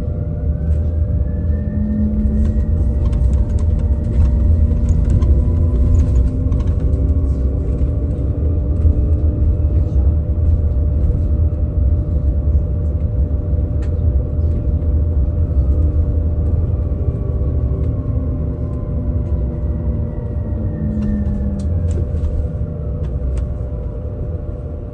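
BYD K8 battery-electric bus running: its traction motor whine rises in pitch through the first several seconds as the bus speeds up, holds, then falls again over the last several seconds as it slows, over a steady low road rumble.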